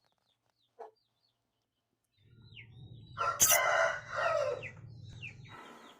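Parrot-beak aseel rooster crowing once, a single long crow starting about two seconds in and lasting around three seconds, with a sharp click partway through.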